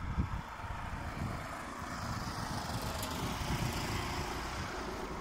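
Wind buffeting the microphone and the rumble of a bicycle rolling over a brick-paved street, with a steady hiss that grows a little louder about two seconds in.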